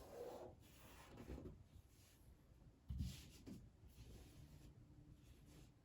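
Faint rustling and rubbing of wet copy paper being pressed and smoothed onto a wall, with a soft knock about three seconds in.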